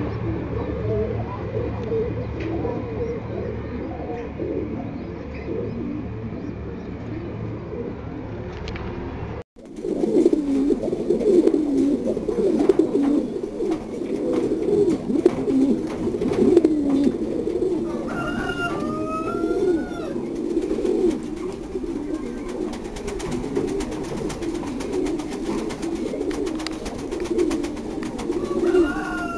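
Several caged domestic pigeons cooing continuously in low, overlapping coos. A short break about a third of the way in, after which the cooing is louder and denser, with a few higher chirping calls from another bird about two-thirds in and again near the end.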